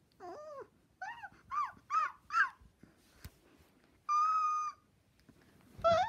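Dog whimpering: one falling whine, then four short whimpers in quick succession, rising and falling in pitch, a held whine a little after four seconds, and a rising cry near the end.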